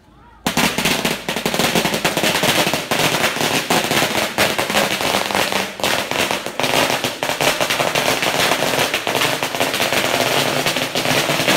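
A long string of firecrackers going off in a rapid, unbroken crackle of bangs, starting suddenly about half a second in.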